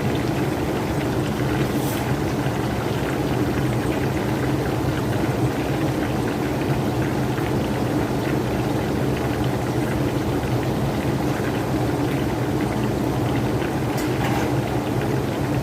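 Whole chicken deep-frying in hot oil: a steady sizzle with many small crackles, over a low steady hum.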